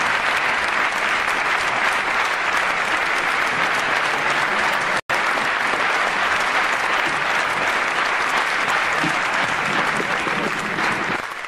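Audience applauding steadily, fading away near the end, with a split-second cut-out about five seconds in.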